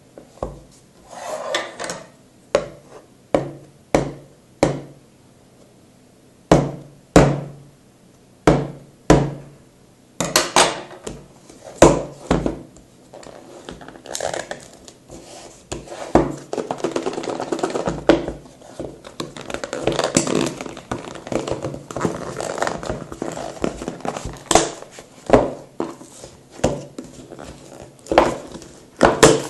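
A phone box and its packaging being handled: first a series of separate sharp knocks and clicks, then, from about halfway, a stretch of rustling and crinkling with more knocks in it.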